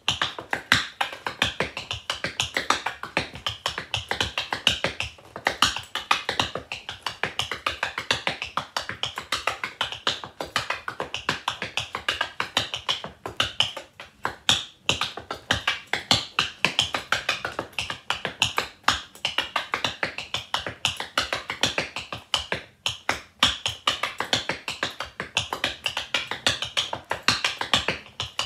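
Rhythm tap dancing: metal taps on tap shoes striking the floor in fast, continuous rhythmic patterns of sharp clicks, with a couple of brief gaps.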